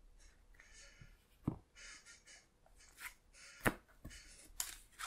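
Game cards and pieces handled on a tabletop: soft sliding and rustling, with several sharp taps as they are picked up and laid down.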